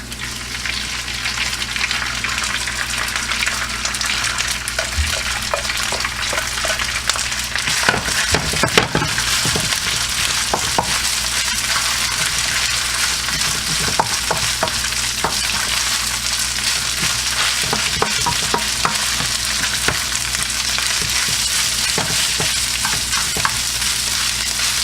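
Rice and garlic sizzling in hot oil in a pan, stirred with a spatula that scrapes and taps against the pan. The sizzle builds in the first couple of seconds, and there are a few louder knocks about eight seconds in.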